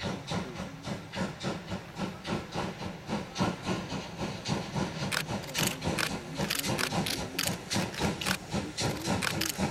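Steam locomotive working under steam as it approaches, its exhaust chuffing in a rapid even beat of about four a second and growing louder.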